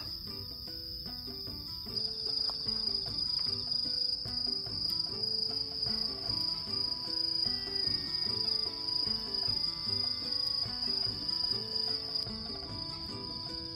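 Night insects trilling in a steady high-pitched chorus, with background music carrying a soft, stepping melody that grows louder about two seconds in and drops back near the end.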